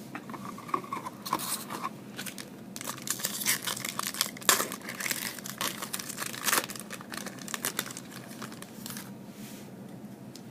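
Foil trading-card pack wrapper being torn open and crinkled, a dense run of crackling for the first several seconds, dying down after about seven seconds.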